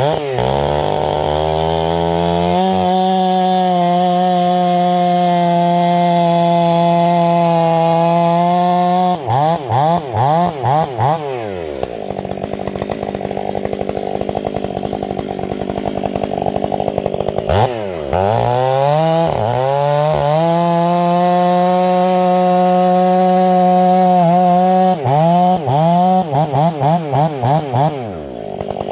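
Stihl 500i two-stroke chainsaw with an 8-pin rim sprocket, held at full throttle through two long cuts in firewood. Between and after the cuts there are several quick throttle blips and a short idle.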